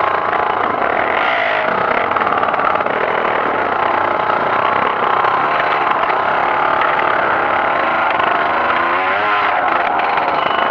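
Trail motorcycle engine running hard under load, its pitch rising and falling with the throttle.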